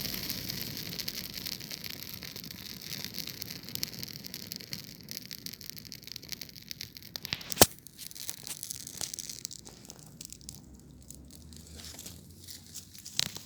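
Campfire crackling and hissing, the dense crackle thinning to scattered snaps, with two sharp loud pops: one about halfway through and one near the end.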